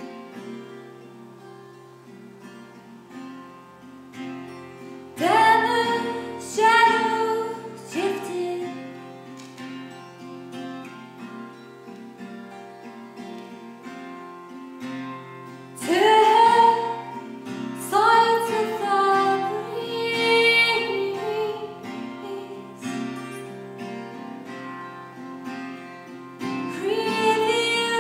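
Acoustic guitar played steadily with a woman singing over it. Her voice comes in with a long phrase about five seconds in, another around sixteen seconds, and starts again near the end, with guitar alone in between.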